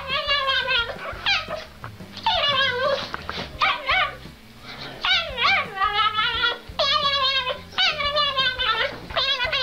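Small dog howling and whining in a run of drawn-out, wavering cries, about one a second, with a short lull near the middle.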